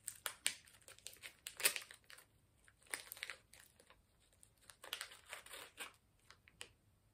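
A small plastic snack wrapper crinkling and tearing as it is handled and opened by hand, in irregular bursts.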